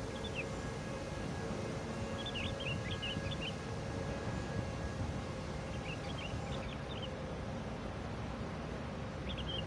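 Steady low outdoor rumble with a faint hum, broken four times by short bursts of high chirping.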